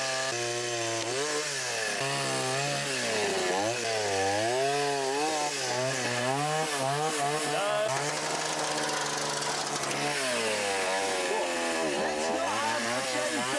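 Two-stroke chainsaw running as it cuts into a fallen tree, its engine note rising and falling repeatedly as it revs and bogs down under load.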